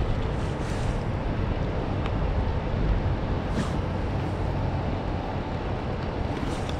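Steady wind rumble on the microphone over the flowing water of a shallow creek.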